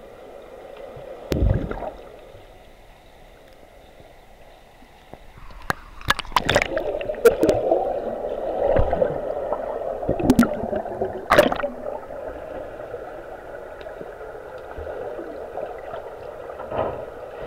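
Muffled underwater pool sound picked up by a submerged camera: water churning and bubbling as a swimmer moves close by, busiest from about a third of the way in, with several sharp clicks and knocks. Before and after that stretch there is only a low steady underwater hum, with a single thump near the start.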